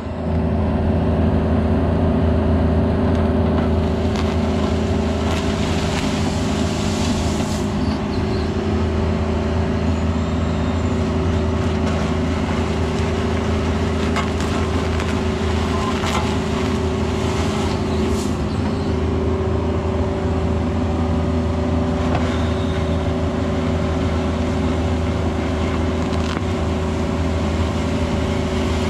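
Cat 304 mini excavator's diesel engine running at a steady speed while the machine works, with a few brief knocks and scrapes as the bucket works the gravel.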